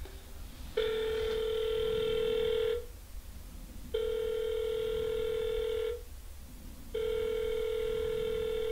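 Telephone ringback tone heard by the caller while the call rings out: three identical steady ring tones of about two seconds each, with about a second between them.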